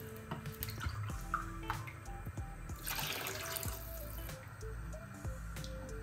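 Water poured from a metal pot splashing into thick tomato soup base in a stainless steel saucepan, strongest about three seconds in, over soft background music.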